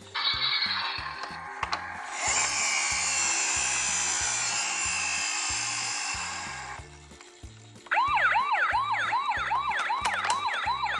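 A toy minicar's steady rushing roll for several seconds, then from about eight seconds in a toy emergency-vehicle siren with quick repeating swoops, about three a second, over background music.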